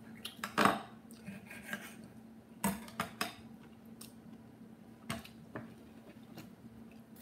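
Knife and fork clinking and scraping against a plate while food is cut, a scattered series of short sharp clinks, the loudest about half a second in.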